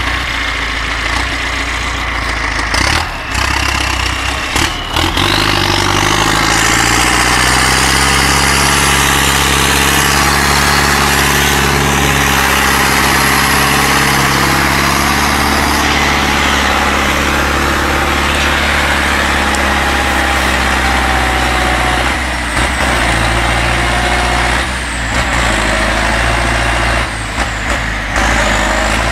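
MTZ tractor's turbocharged diesel engine working under heavy load hauling timber. It revs up a few seconds in, with a high turbo whine rising along with it, and holds at high revs; near the end the revs drop briefly three times and pick up again.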